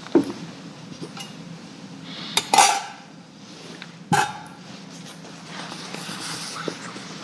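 Communion vessels clinking and knocking on the altar as they are cleared after communion. There are a few sharp clinks, the loudest about two and a half seconds in and another just after four seconds.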